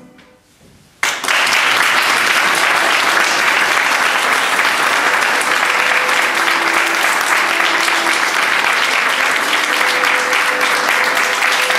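Audience applauding. The clapping breaks out suddenly about a second in and carries on loud and steady.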